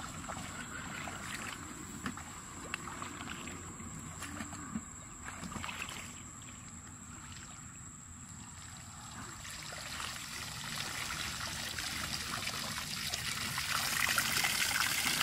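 Water pouring in several thin streams out of the bottom of a plastic bottle trap lifted from the marsh, splashing down and growing louder toward the end. Before that, rustling through grass and a few small clicks.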